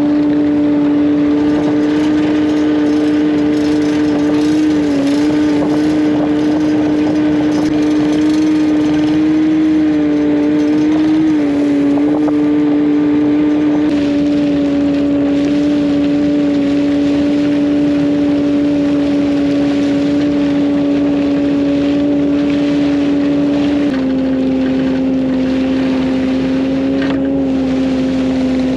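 A machine running steadily, with a loud droning hum of several held tones that shift down slightly in pitch a few times.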